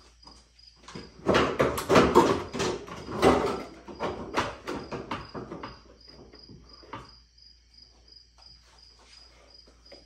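Plastic-and-metal radiator support beam of a Dodge Charger being wiggled and pulled loose by hand: a flurry of clattering knocks and rattles over the first five seconds or so, then only a few scattered clicks.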